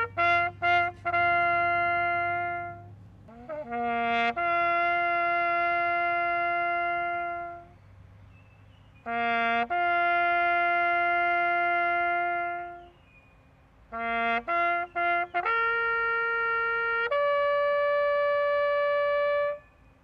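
Solo bugle call on a brass horn: a few quick short notes, then long held notes in three phrases with short pauses between them, the last phrase climbing to a higher held note that cuts off near the end.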